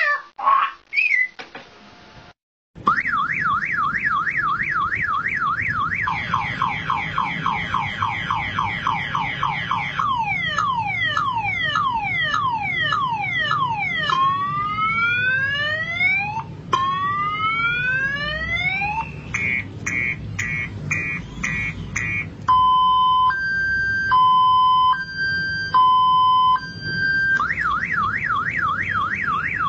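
A man imitating a multi-tone car alarm with his voice, running through its whole cycle. It starts with a fast up-and-down warble and moves to falling sweeps, then slow rising whoops, then quick on-off beeping and a two-note high-low alternation. Near the end it goes back to the warble.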